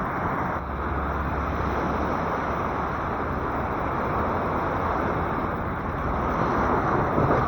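Sea waves washing steadily on the shore, a continuous rushing noise with a low rumble underneath.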